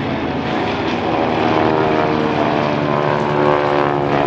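Propeller airplane engine running as the aircraft flies by, growing louder over the first second or so and staying loud.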